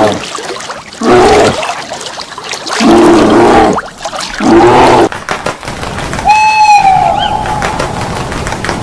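Three short, low calls from a brown bear, about a second and a half apart, then a long, steady, high-pitched trill on one note from an eastern screech owl that starts about six seconds in.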